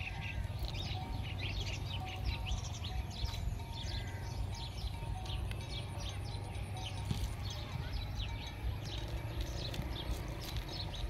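Outdoor chorus of many rapid, high-pitched chirps from wildlife, continuous throughout, over a steady low hum.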